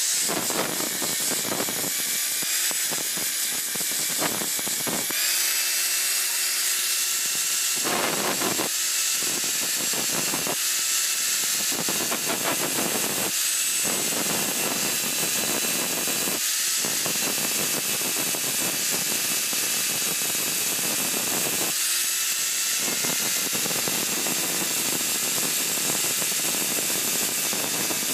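Electric angle grinder running steadily, its abrasive wheel grinding the steel of a serrated blade to finish it. A constant motor whine runs under a harsh grinding rasp that swells and drops again and again as the wheel bites into the steel.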